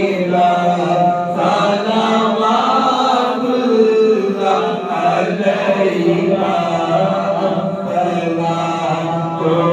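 A man chanting an unaccompanied Islamic devotional recitation into a microphone in long, melodic held phrases, amplified through the mosque's sound system.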